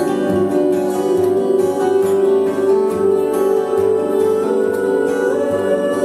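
Two acoustic guitars, a Taylor and a Guild, played together with plucked notes over chords.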